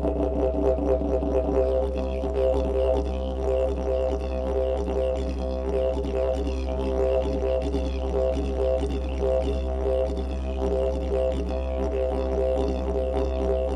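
Didgeridoo music: one continuous low drone with stacked overtones and a rippling, rhythmically shifting buzz higher up.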